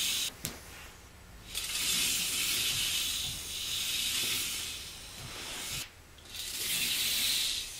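K'NEX coaster car on ball-bearing wheel assemblies rolling along plastic K'NEX track: a high rushing rolling noise that swells and fades as the car runs down through the dip and back up. A sharp click comes about half a second in, and the sound drops away briefly about six seconds in.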